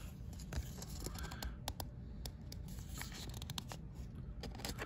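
Pokémon trading card being handled and slid into a card sleeve: faint scraping with scattered small clicks.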